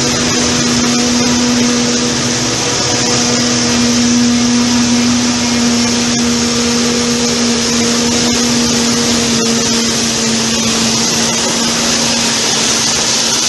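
Maize silage harvesting machinery running steadily at a constant load: an even hum with a strong high hiss, with no revving up or down.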